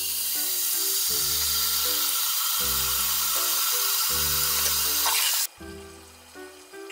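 A loud, steady hiss like frying or running water over background music with a steady beat; the hiss cuts off suddenly about five and a half seconds in, leaving only the music.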